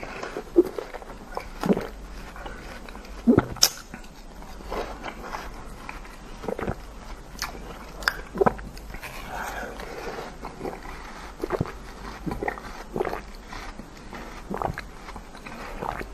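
Close-miked mouth sounds of a person biting into and chewing soft, juicy fruit: wet bites and squelches come every second or two, the loudest about three and a half seconds in.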